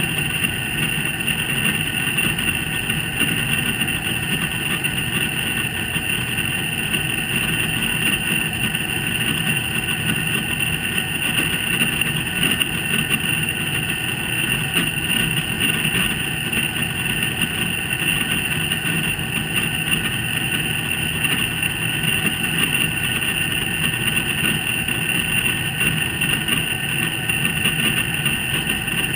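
Hitachi Big Drum drum-type washer-dryer running, a steady high-pitched metallic noise over a low rumble. It is the abnormal noise that sounds in the post-spin loosening (hogushi) phase, the sign of a fault in this five-year-old machine.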